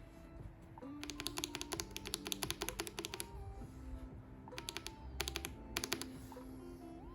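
Akko 5075B Plus mechanical keyboard with Akko CS Silver switches, its keys pressed in a quick run of clacks for about two seconds, then in three short bursts near the end.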